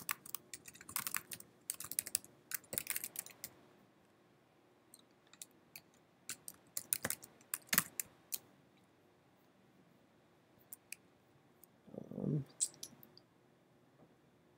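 Computer keyboard typing in quick bursts, then scattered single key or mouse clicks with pauses between. A brief low murmur comes near the end.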